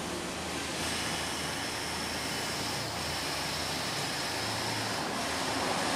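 A4 UV flatbed printer standing idle after a print, giving a steady rushing noise with a low hum and a faint high whine from about one to five seconds in.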